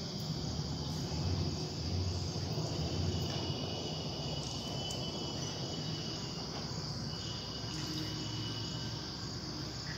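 Steady background noise: a constant high-pitched whine over a low hum, with no distinct sounds standing out.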